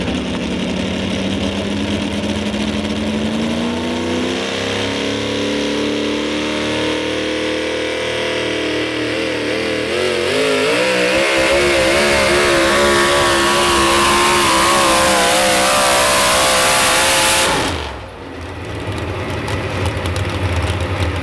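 Modified 4x4 pulling truck's engine at full throttle dragging a weight-transfer sled, its pitch climbing and wavering as it pulls, getting louder about halfway through. Near the end the throttle is cut and the engine note drops away suddenly, then settles to a lower, steady running.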